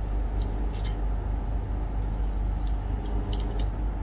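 A steady low hum with a few faint ticks and scratches from a box cutter working at the plastic wrap on a cardboard box.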